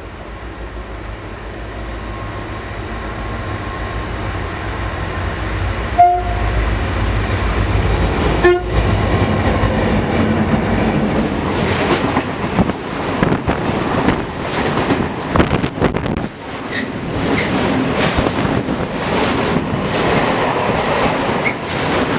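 Freight train running through a station: a rumble that grows steadily as it approaches, two short horn blasts about two and a half seconds apart, then the clatter of container and tank wagons passing close by, with wheels knocking rapidly over the rails.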